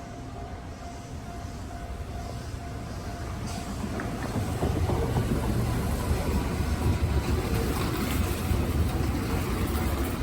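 Kintetsu electric train running through the station, a low rumble that grows much louder about four seconds in and stays loud.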